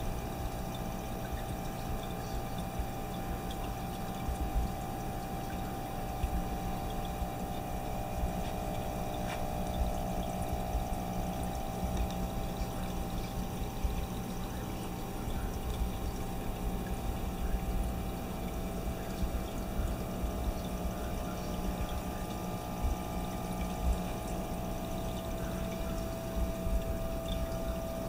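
Air-driven sponge filters in an aquarium bubbling steadily, air bubbles trickling and breaking the water surface from their lift tubes, with a steady hum underneath.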